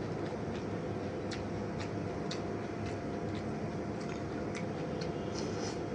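Close-miked chewing of crisp fuska (pani puri) shells: sharp crunchy clicks about every half second to a second, over a steady low hum.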